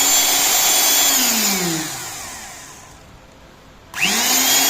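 Electric motor of a 25 mm rebar cutting machine running without load, a steady whine. About a second in it is switched off and winds down with a falling whine, then it restarts with a quickly rising whine near the end.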